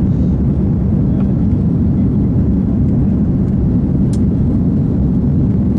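Steady low rumble of an Airbus A330-300's engines and rushing air, heard inside the passenger cabin while the jet climbs after takeoff.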